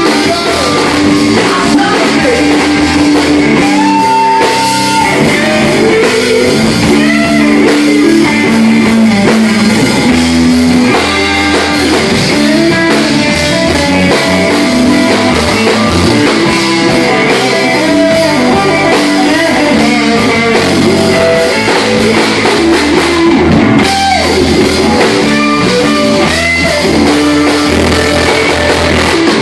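Live rock band playing loudly: electric guitar over a drum kit.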